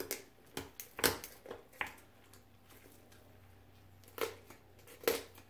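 Poultry cutters with specially hinged jaws snipping through a raw turkey's backbone: about five short crunching snips in the first two seconds, a pause, then two more near the end.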